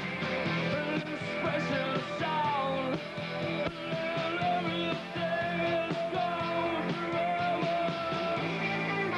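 Live rock band playing: electric guitars and drums in a dense, steady song, with singing over it.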